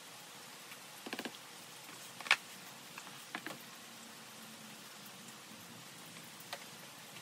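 Light plastic clicks and taps from a homemade sliding seed-sowing board being worked over a plug tray: a quick rattle of several clicks about a second in, a sharper single click a little after two seconds, then a few scattered taps.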